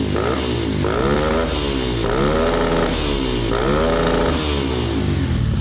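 Motorcycle engine revved through a ProSpeed RX series aftermarket exhaust for a sound check. A quick blip is followed by several longer revs, each rising and falling in pitch.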